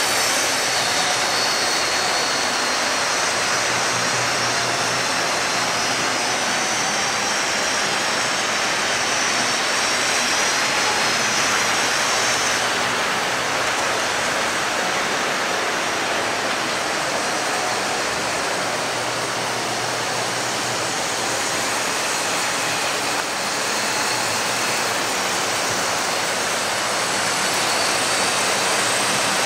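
Electric model trains running on the layout's track: a steady rumbling whir of wheels and motors, with a low hum underneath and a faint high whine that fades out about halfway through.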